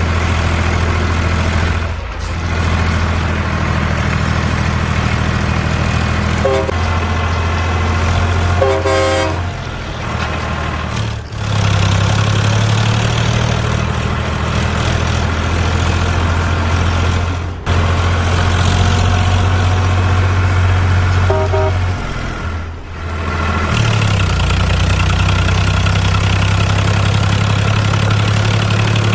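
Truck engine running steadily, with three short horn toots; the engine sound changes abruptly several times, as if pieced together from separate recordings.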